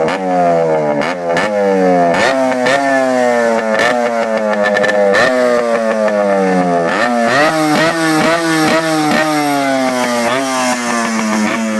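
Two-stroke motorcycle engine on its stock exhaust, without an expansion chamber, revved over and over: the throttle is blipped about once a second and the revs fall back between blips, with sharp cracks on some of the blips.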